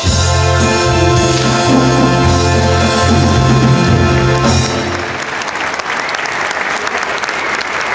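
Music plays loudly and stops about five seconds in; audience applause, starting under the last of the music, then carries on alone.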